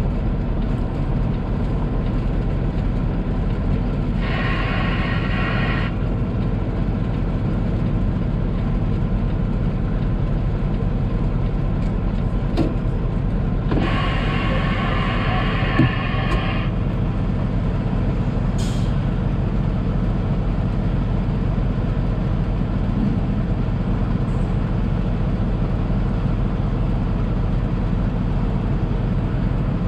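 Semi-truck's diesel engine running steadily, heard from inside the cab, with two hisses of air from the air brakes, about four seconds in and again around fourteen seconds in, the second one longer.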